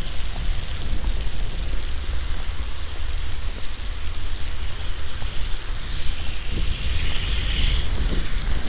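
Wind buffeting the microphone in a low, gusting rumble, over a steady hiss of falling sleet and snow. The hiss grows louder briefly about six to eight seconds in.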